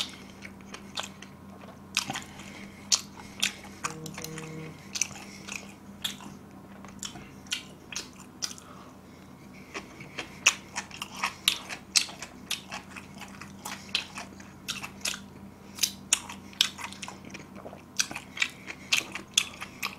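Close-up chewing of a bite of pizza, with irregular crisp crunches and mouth clicks from the crust.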